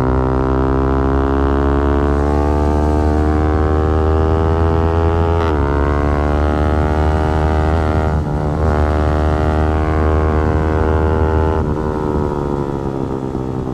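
Yamaha R15 V4's 155 cc single-cylinder engine and exhaust pulling hard under steady throttle, its pitch climbing slowly. The pitch dips briefly about halfway, then the engine eases off near the end and gets quieter.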